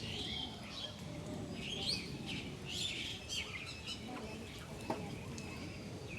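Small birds chirping and singing in short repeated phrases, over a steady low background rumble, with one sharp click about five seconds in.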